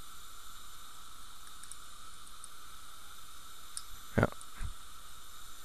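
Steady hiss of an old analog video recording with no distinct working sound. One short knock comes about four seconds in, and a fainter one just after it.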